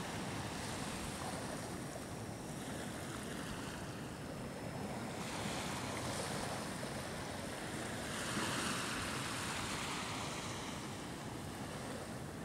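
Surf washing onto the beach, mixed with wind on the microphone. It is a steady rush that swells twice, loudest about eight seconds in.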